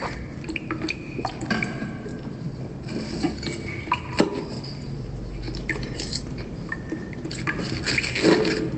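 Scattered light clinks and knocks, like dishes or glassware being handled, some leaving a brief ringing tone.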